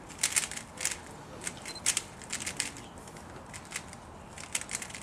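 A 3x3x3 Rubik's-type speedcube being turned fast during a timed speedsolve: rapid, irregular plastic clicks and clacks of the layers snapping round, often in quick clusters.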